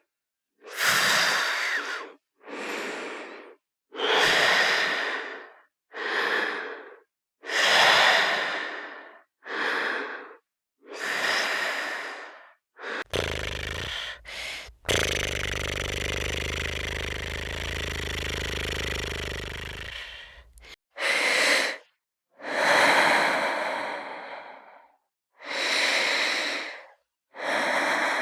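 Human breathing sound effects: a run of separate breaths and sighs, each about a second long, with short silent gaps between them. In the middle stretch a longer, steady breathing sound has a low rumble beneath it. After that the separate breaths resume.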